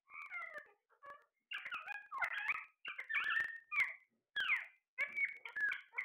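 Alexandrine parakeets calling: a busy run of short squawks and chattering calls, one after another, some sliding down in pitch.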